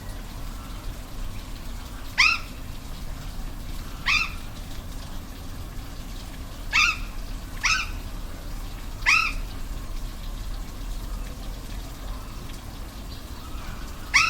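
Six short, sharp animal calls, each rising and then falling in pitch, spaced one to three seconds apart, over the steady rush of a waterfall.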